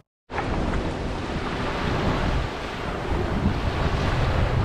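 Small waves washing onto a sandy beach, a steady surf with wind rumbling on the microphone. The sound drops out completely for a moment at the very start, then resumes.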